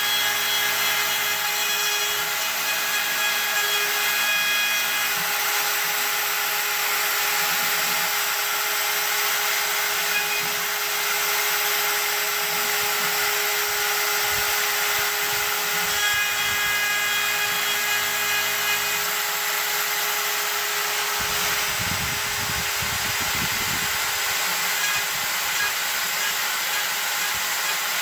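X-Carve CNC router milling: its spindle motor runs with a steady high whine and cutting noise. Low humming tones from the gantry's stepper motors come and go twice as the machine moves, and a low rumble joins in briefly about three quarters of the way through.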